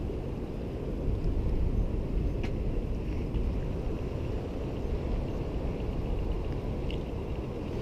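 Steady low rumble of wind and sea surf at a breakwater, with a couple of faint clicks.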